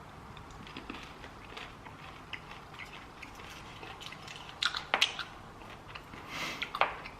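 A person chewing a piece of xylitol chewing gum: soft, wet mouth clicks, with a few louder crackles in the second half.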